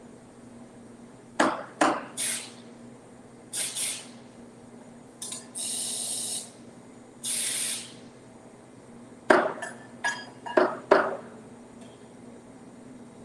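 Espresso-bar work at a commercial espresso machine: sharp knocks and clinks of metal and ceramic, then two hisses of steam from the steam wand about five and seven seconds in, then another run of clattering knocks.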